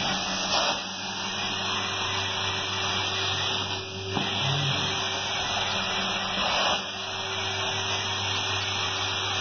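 Carpet extractor wand doing hot-water extraction: a steady suction-and-spray noise with a low hum, shifting briefly every few seconds as the wand is drawn across the carpet in strokes.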